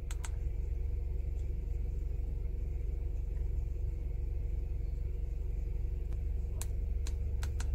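Car engine idling, a steady low rumble with an even pulse. A few light clicks, mostly near the end, from buttons on a handheld OBD2 scan tool.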